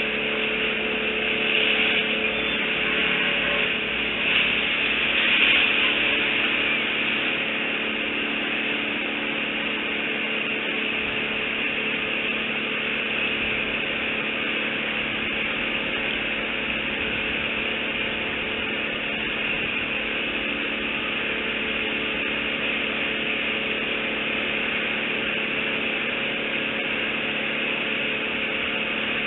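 Steady machine-like drone: a constant low hum under a hiss, a little louder for the first few seconds, then even.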